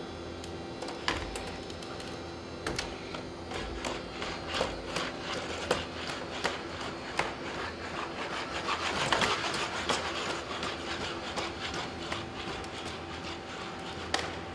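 Spot Mini quadruped robots walking on a hard floor: a faint steady electric whine from their leg motors, with irregular taps of their feet, busiest a little past the middle.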